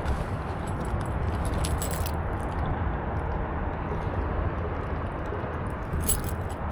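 Keys jingling in a few brief clinks, near the start, about a second and a half in and again near the end, over steady background noise.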